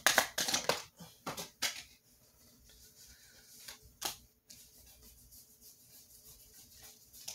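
Tarot cards being shuffled and handled: a quick run of sharp clicks in the first two seconds, one sharp snap about four seconds in, then faint light card handling.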